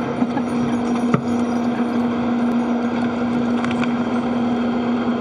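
Steady running of spacecraft cabin ventilation fans: a constant hum with a hiss over it, and a light knock about a second in.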